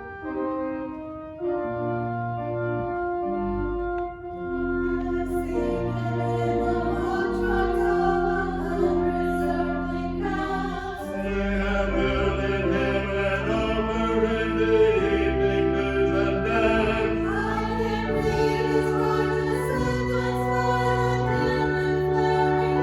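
Organ playing sustained chords, joined about five seconds in by voices singing along to its accompaniment.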